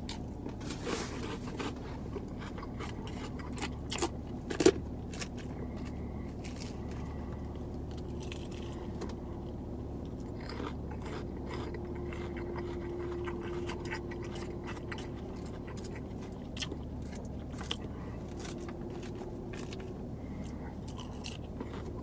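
Salad being eaten with a plastic fork from a plastic bowl: the fork scrapes and clicks against the bowl, with crunching and chewing in between. One sharp click about four and a half seconds in is the loudest sound.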